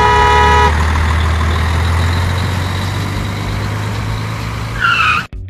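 A truck horn sounds for under a second, then a heavy truck engine runs with a steady low rumble as the sound of a toy crane truck. A short squeaky chirp comes near the end before the sound cuts off.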